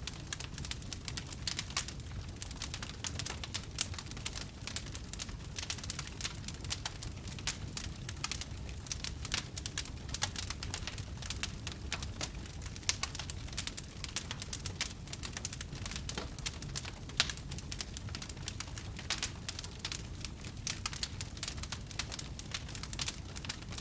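Wood fire burning with dense, irregular crackling and a few louder pops, over a steady low rumble of the flames.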